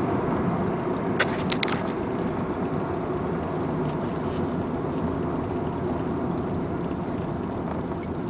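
1994 Honda Accord EX's 2.2-litre VTEC four-cylinder engine running steadily, with the engine knock it is recorded for. A few sharp clicks sound about a second and a half in.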